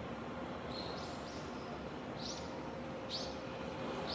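A bird giving short, high, arched chirps, several in a row about a second apart, over a steady background rumble with a faint hum.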